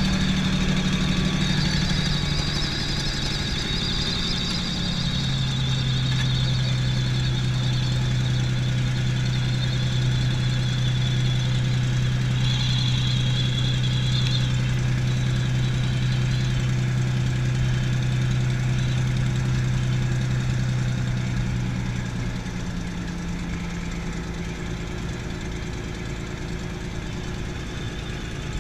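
P-51D Mustang's Packard Merlin V-12 running at low power while taxiing, heard from inside the cockpit: a steady engine drone whose pitch shifts about five seconds in, then settles a little quieter near the end.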